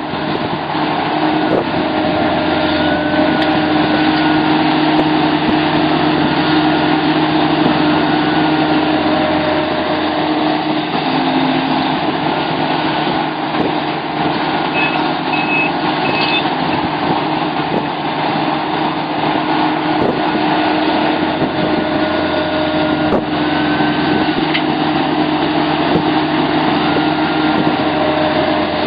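Sumitomo SH700LHD-5 excavator's diesel engine running steadily under work, getting louder about a second in. Three short high beeps sound about halfway through.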